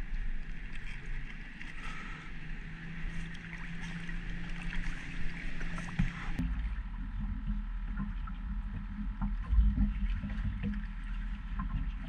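Water sloshing and splashing against a skiff's fiberglass hull while a swimmer holds onto its side. About six seconds in, this gives way suddenly to a low rumble with scattered small knocks.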